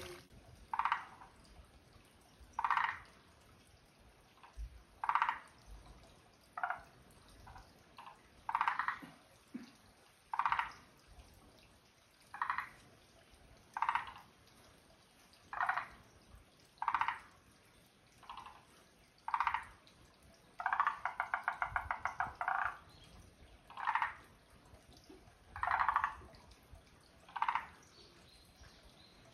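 Frogs calling in a garden: short calls repeat about every second and a half to two seconds. About two-thirds of the way through, one call becomes a longer rapid rattling trill lasting about two seconds.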